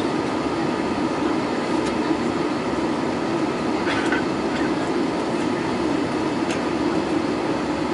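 Airbus A320neo cabin noise heard at a window seat during the climb after takeoff: a steady drone of the jet engines and the airflow over the fuselage, with a constant low hum. A few faint clicks come through it.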